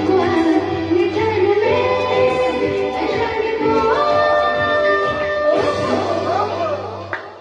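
A woman singing a song over instrumental accompaniment, holding long notes with sliding pitch; the music dips in loudness shortly before the end.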